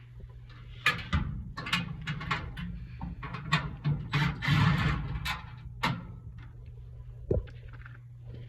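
Metal clicks, knocks and scraping as screws are taken out of a furnace's sheet-metal blower assembly, busiest in the middle, with one sharp knock near the end. A steady low hum runs underneath.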